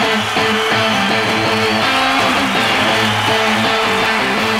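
Background music: an instrumental passage of a song with strummed electric guitar, no singing.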